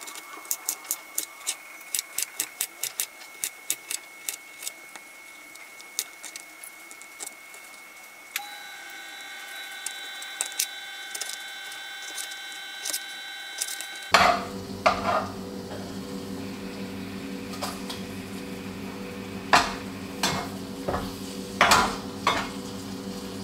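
Kitchen knife chopping vegetables on a plastic cutting board, quick taps that slow and thin out over the first several seconds. About fourteen seconds in a steady low hum starts, with a few scrapes and knocks of a utensil against a frying pan as the fish is turned.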